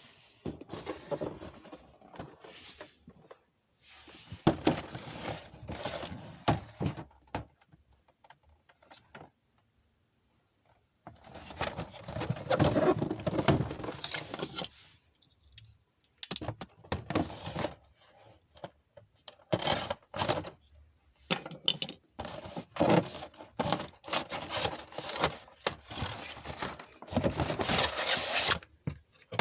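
Hands handling and opening a spinning-top toy's plastic and cardboard packaging: bursts of rustling and scraping with sharp clicks and knocks, broken by short pauses.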